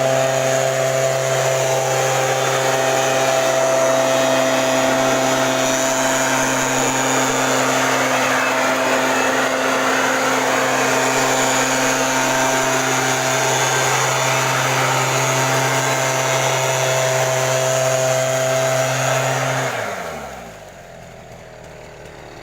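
STIHL backpack mist-blower sprayer's small two-stroke engine running steadily at high speed, then shut off about twenty seconds in, its pitch sliding down as it winds to a stop.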